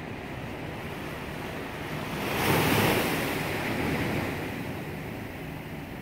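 Ocean surf washing in. One wave rises to a louder rush a little before halfway and fades away over the next two seconds.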